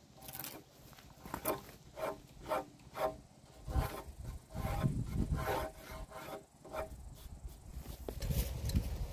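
A hand tool rasping against the edge of a softwood timber beam in repeated short strokes, about two a second, which stop about seven seconds in.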